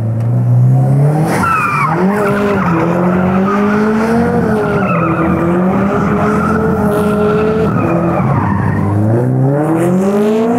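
Subaru Impreza running a swapped-in 2004 JDM STI turbocharged flat-four, held high in the revs with the tyres squealing through a donut. The revs climb at the start, waver, drop briefly near the end and climb again.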